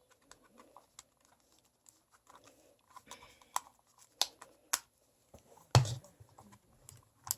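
Plastic toy packaging being handled and opened by hand: scattered crinkles and sharp clicks, with one louder thump about six seconds in.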